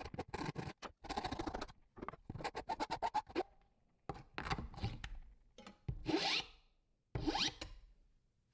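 Rapid strokes of a hand saw and a flat file cutting and cleaning box-joint fingers in plywood. The footage is sped up, so the rasping strokes come fast, zipper-like. Two longer, rising scrapes come near the end.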